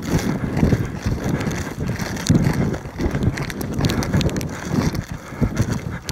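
Footsteps walking through dry crop stubble, about two steps a second, with wind buffeting the microphone.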